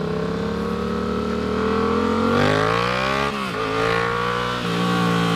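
Yamaha MT-07's parallel-twin engine running loud with its muffler removed while riding. The pitch climbs steadily, rising faster up to about three seconds in, then drops sharply and settles to a steadier note.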